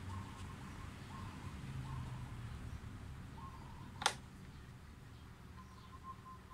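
Hands working a motorcycle's wiring harness while tapping into the signal-light wire, with one sharp click about four seconds in over a steady low hum. Faint high chirping notes repeat in the background.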